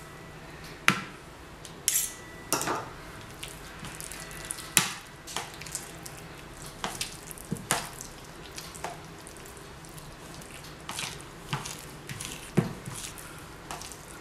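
Thick avocado, cream and egg quiche filling being mixed in a bowl: a fork taps and scrapes against the bowl, then the wet mixture squelches as it is worked by hand. Irregular sharp taps come every second or so.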